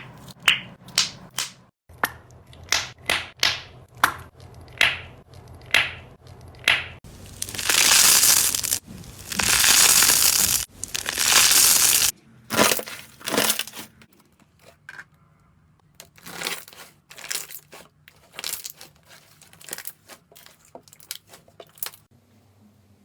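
Slime being pressed and worked by hand, crackling and crunching: a run of short crackly presses roughly every half second to a second, two longer crackling stretches around the middle, then quieter, quicker crackles toward the end.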